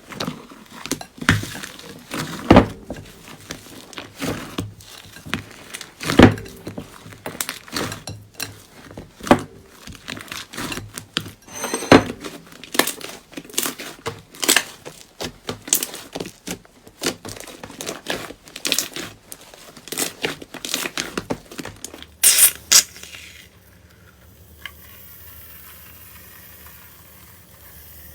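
Slime being squeezed and worked by hand, giving a run of irregular crackling pops and clicks. The popping stops after a last loud cluster near the end, leaving a faint hiss.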